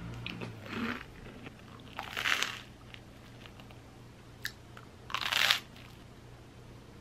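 Crisp bites into a slice of toasted bread: a light crunch about a second in, then two louder crunches at about two and five seconds.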